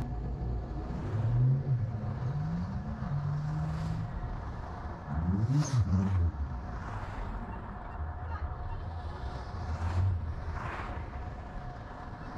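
Car engine running on the road, its pitch rising and falling as it speeds up and slows.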